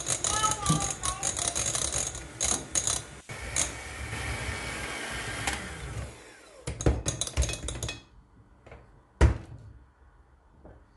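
Electric hand mixer running, its wire beaters whirring and clicking in a glass bowl as they cream butter, sugar and eggs; it stops about eight seconds in. About a second later comes a single sharp knock.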